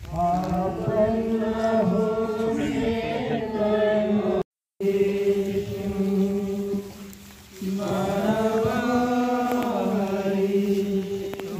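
A crowd of people singing a slow hymn together in unison, with long held notes in phrases. The singing cuts out completely for a moment about four and a half seconds in.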